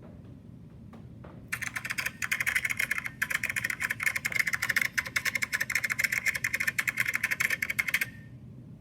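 A fast, dense run of clicks, starting about a second and a half in and cutting off suddenly about eight seconds in.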